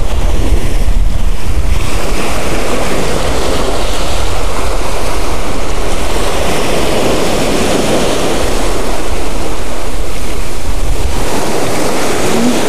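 Ocean surf breaking and washing up a sand beach, with wind buffeting the microphone in gusts that are strongest near the start and again near the end.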